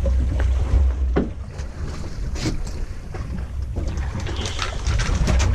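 Fishing boat underway at sea: a loud, steady low drone with wind buffeting the microphone, broken by a few sharp knocks.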